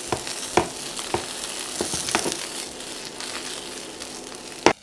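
Chicken pieces sizzling steadily in hot oil in a nonstick frying pan, fried golden and cooked through, with a fork clicking against the pan as they are turned. A sharper knock comes just before the end.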